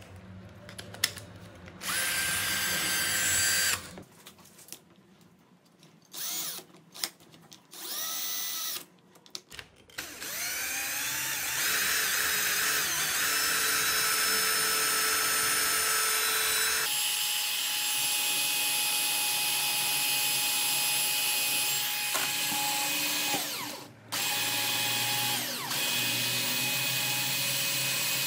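Cordless drill's RS550 21V brushed motor test-running on its opened battery pack: several short runs, each whining up in pitch as it comes up to speed, then a long continuous run that cuts out briefly near the end and starts again.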